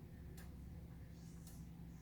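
Gilbert six-bell chime clock's movement ticking faintly, two ticks about a second apart.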